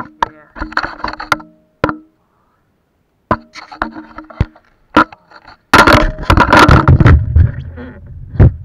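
Action camera dangling from its tether, knocking against the rider and his gear in a series of sharp knocks, then rubbing loudly against his clothing from about six seconds in.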